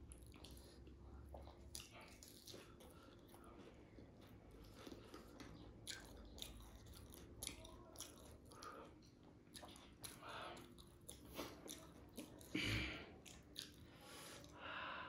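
Faint chewing and biting of dahi puri, crisp fried puri shells filled with yogurt, heard as irregular small clicks, with one louder bite near the end.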